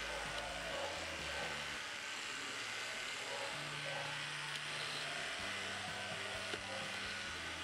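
Electric dog grooming clippers running steadily, shaving down a heavily matted coat.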